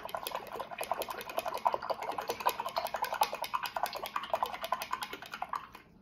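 Paintbrush being scrubbed and swished quickly in a small cup, a fast run of small clicks and clinks that stops abruptly near the end.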